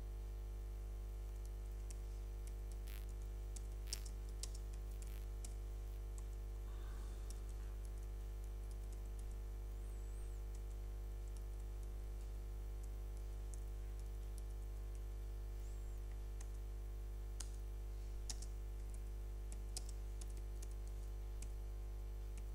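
Faint, scattered computer keyboard keystrokes over a steady low electrical hum. They come in two short clusters, a few seconds in and again a little past the middle.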